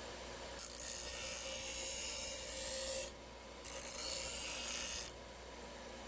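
Bench grinder running, with a steel knife blank cut from an old saw blade pressed against the wheel twice. Each pass is a harsh, high grinding hiss, the first about two and a half seconds long and the second about a second and a half, while the motor hums steadily between them.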